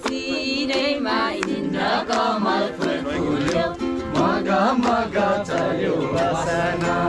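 Several people singing a song together to a strummed ukulele.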